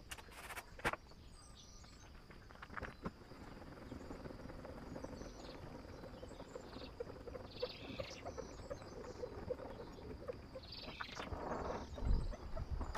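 Faint clicking and light rattling of a motorhome's roll-out side awning being wound in by hand, with a louder rustle near the end as it closes against the van. Birds chirp a few times over a steady faint high insect tone.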